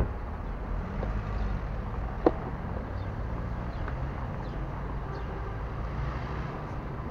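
Street ambience: a steady low rumble of traffic, with wind on the microphone. Two sharp knocks break through it, a loud one at the very start and a smaller one about two seconds in.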